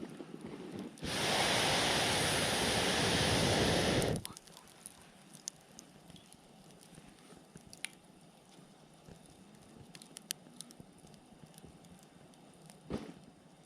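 Firewood crackling in a campfire, with scattered small pops and one louder pop near the end. About a second in, a loud, steady rushing noise starts suddenly, lasts about three seconds and cuts off sharply.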